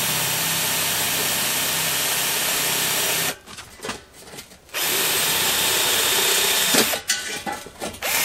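Electric drill drilling a pilot hole through a stove pipe for the damper rod, stepping up to a 3/16-inch bit. It runs in three goes: a long run that stops about three seconds in, a second run after a short pause, and a brief third run near the end.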